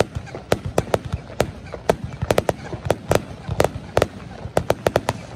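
Aerial fireworks bursting overhead in quick, irregular succession: sharp bangs several times a second over a low rumble, with a rapid flurry of them near the end.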